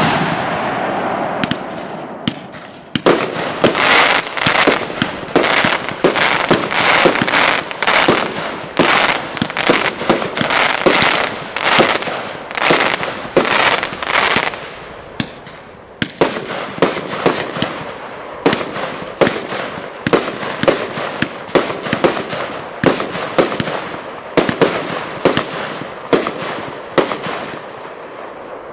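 Piromax PXC346 7-in-1 firework compound cake firing in rapid succession: a long run of launch thumps and bursting bangs, several a second. A dense crackling haze sits under the shots from about four to fifteen seconds in, and the shots thin out and fade near the end.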